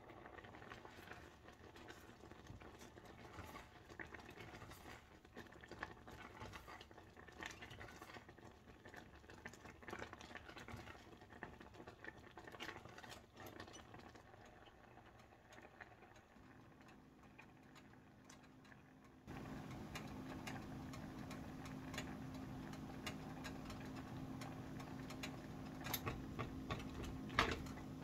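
Thick oatmeal bubbling and popping softly in a stainless steel saucepan, with a silicone spatula stirring and knocking against the pan in a few sharper clicks near the end. A steady low hum starts abruptly about two-thirds of the way through.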